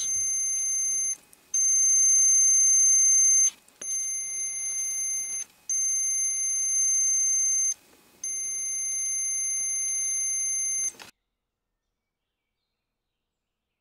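Digital multimeter's continuity beeper sounding in five long, steady beeps with short breaks between, as the probe touches the blades and slots of a two-prong extension cord: each beep signals an unbroken conductor, a near-zero resistance reading.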